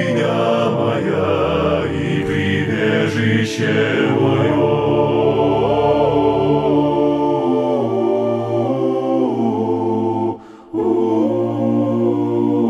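Wordless a cappella choral singing: layered voices holding sustained chords that shift slowly from one to the next, with a brief break about ten seconds in before the chords resume.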